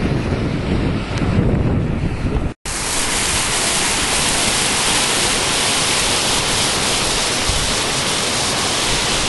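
Wind buffeting the microphone. After a sudden cut about two and a half seconds in, it gives way to the steady rushing hiss of a shallow stream running over rocks.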